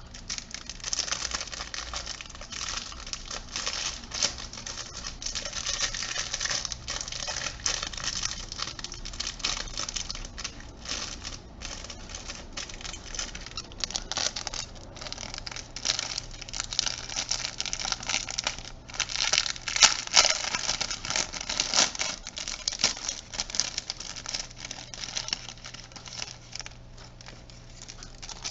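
Close, dense crinkling, clicking and rustling of fingers working small plastic parts inside an opened JVC Everio camcorder, unwinding its flex ribbon cable from the LCD hinge's swivel bar, over a faint steady hum. The handling is busiest about two-thirds of the way through.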